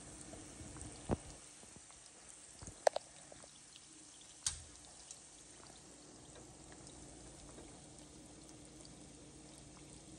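Samosas and spring-style rolls deep-frying in oil on medium heat: a faint, steady sizzle, with a few sharp clicks in the first half.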